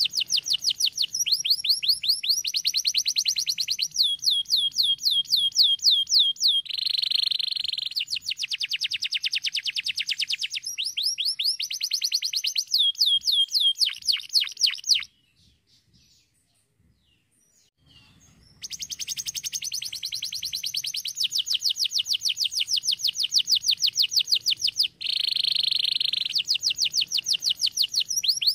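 Domestic canary singing a long song of fast trills and rapid rolls of high, falling notes, with a pause of about three seconds about halfway through before the song starts again.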